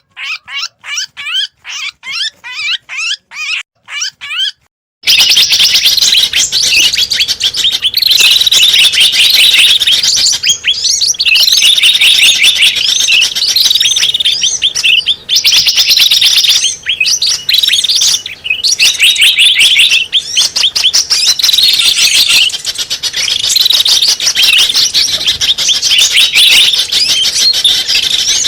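Recorded small-bird calls played as a bird lure. First comes a series of clean, quick chirps, about two or three a second. After about five seconds it cuts abruptly to a loud, dense chattering chorus of many small birds in repeating bursts.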